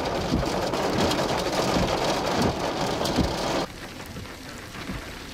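Rain pattering: a dense hiss full of small quick taps that cuts off suddenly about three and a half seconds in, leaving a fainter steady hiss.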